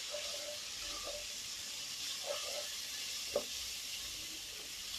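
Spice paste with turmeric and chilli powder sizzling in hot oil in a pan as it is fried down and stirred. A few light knocks sound over the steady hiss, the sharpest about three and a half seconds in.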